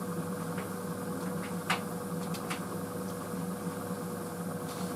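White Knight CL43 tumble dryer running on a high-heat cycle: a steady, quiet motor and fan hum with a constant tone, and a few faint ticks a couple of seconds in.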